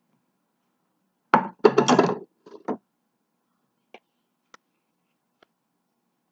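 A frying pan set down on a wooden table: a sharp knock and a clatter about a second in, then a shorter clatter, followed by three light ticks of a spoon against the mixing bowl.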